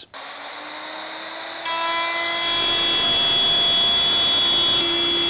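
DeWalt router with a 1/2-inch straight bit switched on, its motor spinning up over about two seconds to a steady high whine. It runs at full speed while cutting a dado groove in 3/4-inch birch plywood along a guide rail.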